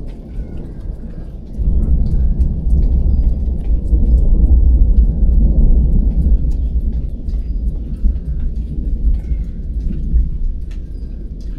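Rolling thunder from a nearby thunderstorm: a deep rumble swells up about a second and a half in, peaks in the middle and slowly dies away.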